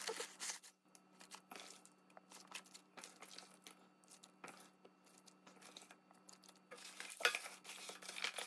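Gloved hands packing seasoned ponytail radishes and green onions into a plastic kimchi container: soft, irregular wet squishes, rustles and light knocks against the plastic, busier near the end.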